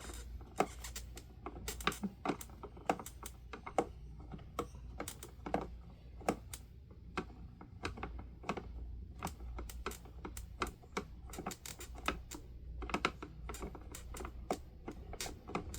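Irregular light plastic clicks and rattles, a few a second, as the plastic guard parts of a Honeywell HT-900 table fan are turned and handled by hand. The part turns freely instead of locking tight.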